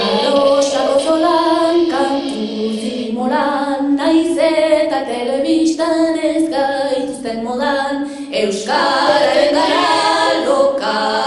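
Vocal music: a female voice singing a slow melody in long held notes, with a short break and a new phrase about three-quarters of the way through.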